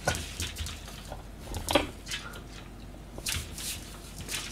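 A small dog handling a piece of napa cabbage on a wooden floor: a few short, scattered clicks and crunches.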